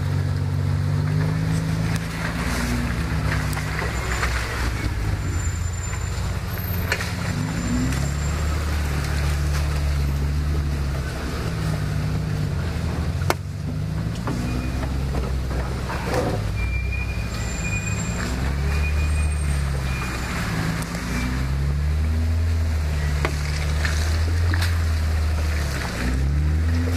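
Off-road 4x4 engine working through deep mud, its revs repeatedly rising and falling as the throttle is worked.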